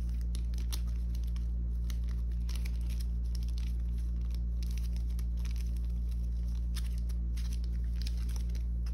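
Photocards in plastic sleeves and toploaders being handled, shuffled and laid on a binder's plastic sleeve pages: scattered light crinkling, rustling and clicking of plastic, over a steady low hum.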